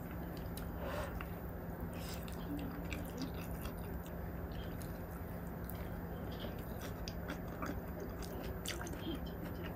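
A person chewing mouthfuls of soft cheese-and-cream kimchi fried rice, with scattered small mouth clicks and spoon sounds, over a steady low hum.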